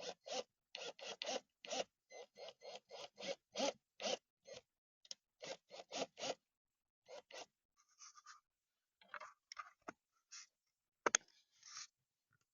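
Hand screwdriver driving a screw into a plastic doorbell mount: short scratchy turning strokes, about four a second, growing sparser after a few seconds, then one sharp click near the end.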